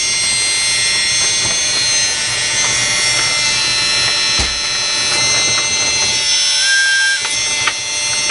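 RC hydraulic excavator running: its hydraulic pump whines steadily with several high tones over a low hum, the whine dipping and shifting a few times as the machine works. A knock comes about four seconds in, then a short higher beep near seven seconds and a few clicks near the end.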